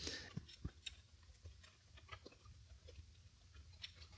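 Faint clicks and ticks of thin speaker wire being handled and pulled free inside an opened compact Mac case, with a few sharper clicks in the first second and sparse small ticks after.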